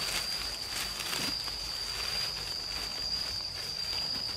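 A steady high insect drone, with dry twigs and leaves rustling and crackling as the sticks are handled.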